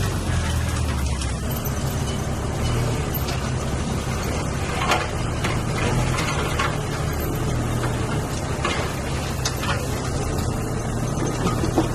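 Heavy diesel engine of earthmoving machinery running steadily, with several short sharp knocks scattered through it.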